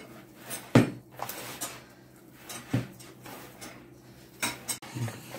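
Hands kneading soft, very wet yeast dough in a plastic bowl. Dull thumps come about every two seconds as the dough is pushed down against the bowl, with a couple of lighter knocks near the end.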